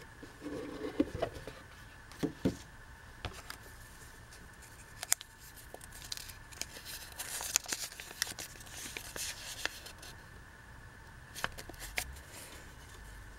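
Hands handling a cardboard box and paper: a few knocks and scrapes as the box lid is taken off in the first few seconds, then crinkling and rustling as a folded paper slip is unfolded, with scattered light clicks.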